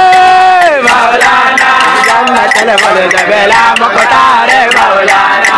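Men chanting dhikr together in a loud, rhythmic chant. A long held note slides down about a second in, then the chant runs on over a steady beat of sharp hits.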